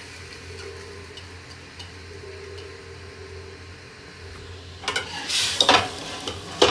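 Simmering masala liquid in a steel pot, a low steady sizzle, as lentils are scraped in from a bowl; about five seconds in, a metal spoon stirs against the pot, scraping and clattering loudly.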